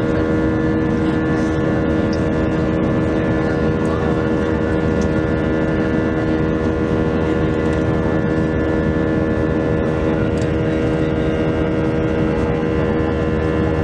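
IAE V2500 turbofan engines of an Airbus A320 heard from inside the passenger cabin, a steady, even drone with several constant tones and no change in pitch.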